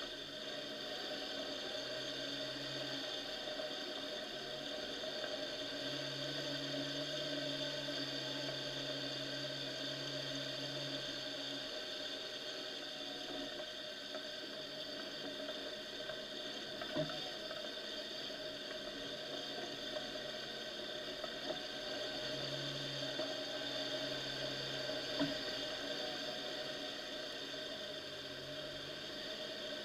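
Off-road vehicle engine running at low, steady revs while driving through a waterlogged, muddy track, with slight rises and falls in pitch. Two sharp knocks stand out, one a little past halfway and one later.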